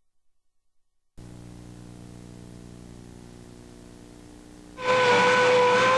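Dead silence, then a faint steady hum. Near the end a loud, steady whistle-like tone over a rushing hiss starts abruptly.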